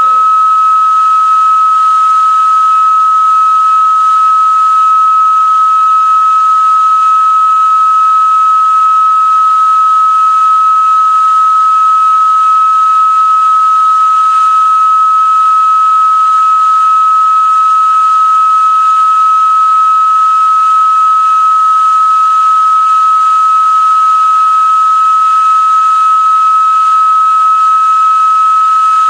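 Organ flue pipe blown with helium, sounding one steady, high whistle-like tone over the breathy hiss of the gas jet at its mouth.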